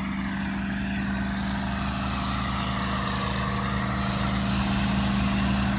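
Combine harvester running steadily while harvesting corn: a constant engine and machinery drone with one strong, unchanging hum.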